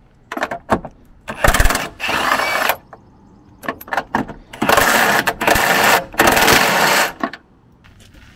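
Power tool on the nut of a BMW E36's rear shock upper mount, running in two bursts, about a second and a half and then about two and a half seconds long, with a few short clicks before each.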